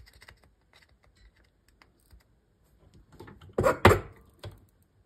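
Light clicks and scrapes of a soldering iron tip working the pads of a phone circuit board while the old jumper wires are desoldered, then a louder clatter of two knocks in quick succession about three and a half seconds in, and one more small click.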